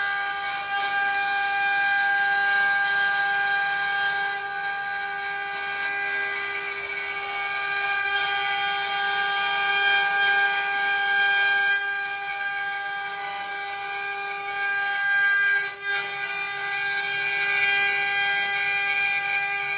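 Cimtech multi-head CNC router's row of high-speed spindles running together while carving twisted wooden balusters on rotary axes: a steady high whine of several held tones, with the hiss of the bits cutting wood.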